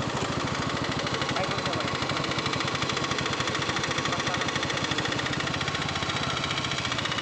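Motorcycle engine running steadily at low revs while the bike rolls slowly, a fast, even throb of firing pulses.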